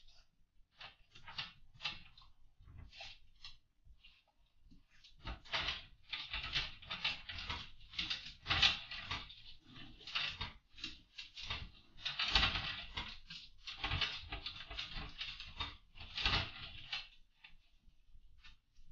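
A dog chewing and mouthing a steel chain: quick, irregular bursts of rattling and wet chewing, sparse at first, then busier and louder for most of the stretch before tailing off near the end.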